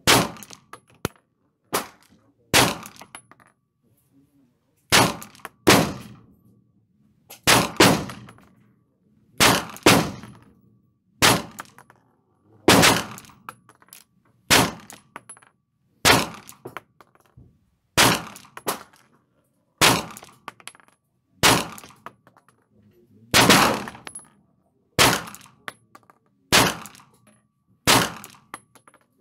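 Glock 17L 9mm pistol with a shoulder stock fired in slow, deliberate single shots, about one every 1.5 to 2 seconds, roughly twenty in all. Each shot is a sharp crack with an echoing tail in the indoor range. A few fainter shots fall in between.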